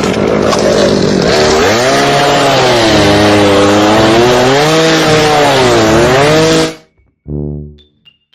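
A loud motor-driven power tool running hard, its pitch wavering up and down, stopping abruptly near the end.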